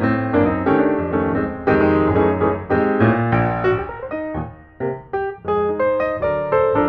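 Background piano music, notes played in a steady flowing pattern with a brief lull a little past the middle.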